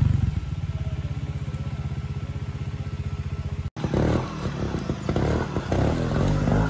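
Trials motorcycle engine ticking over with an even pulse. A little over halfway through, the sound cuts off abruptly and another trials bike is heard picking its way over rocks and roots, its engine note uneven and broken by knocks and clatter.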